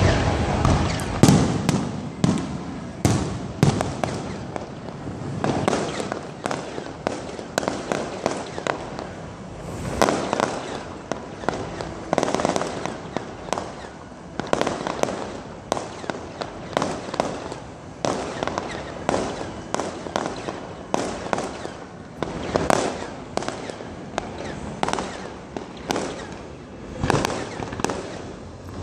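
Aerial fireworks display: shells bursting in a long string of bangs, often several a second.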